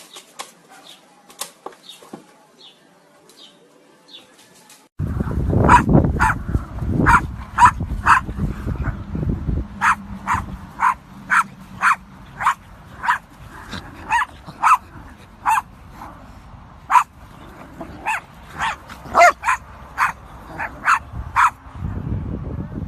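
English bulldog barking repeatedly, sharp barks about two a second with short pauses, starting suddenly about five seconds in over a low rumbling background. Before that, only faint scattered clicks.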